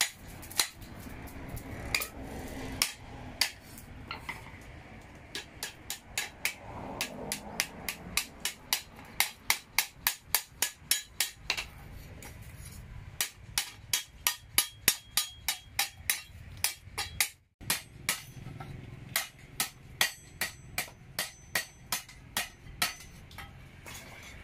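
Hand hammer striking a steel hoe blade on a small stake anvil, forging it: a steady run of ringing metal blows, about two to three a second, with a brief break about two-thirds of the way through.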